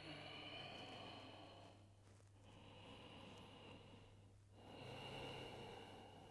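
Faint, slow breathing of a person holding a yoga pose: three long breaths, each about two seconds, with short pauses between them. A steady low hum runs underneath.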